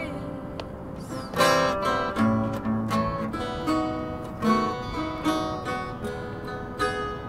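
Instrumental passage of a live band song: strummed acoustic guitar chords, with no singing.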